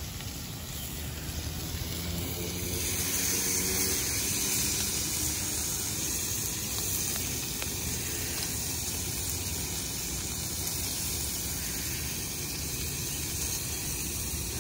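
Bacon strips sizzling on a propane flat-top griddle: a steady hiss that grows a little louder about three seconds in.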